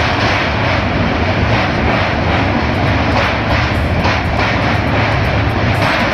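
Passenger train running over a steel truss railway bridge, heard through an open window: a loud, steady rumble of wheels on the rails and rushing wind, with a brief swish roughly once a second as the bridge girders pass close by.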